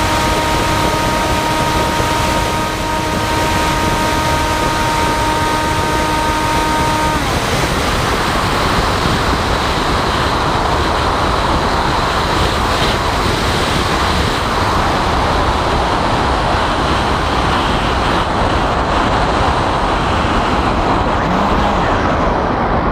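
Onboard audio of a radio-controlled flying wing: the propeller motor gives a steady whine under heavy wind rush on the microphone, and the motor cuts off suddenly about seven seconds in. After that only the loud rush of wind is heard as the plane glides.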